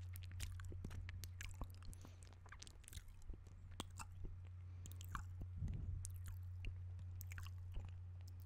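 Close-miked wet mouth sounds: irregular lip smacks, tongue clicks and sucking noises, over a steady low hum.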